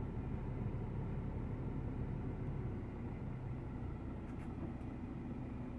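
Scania R 540's V8 diesel engine running steadily at low revs as the truck creeps forward, heard from inside the cab.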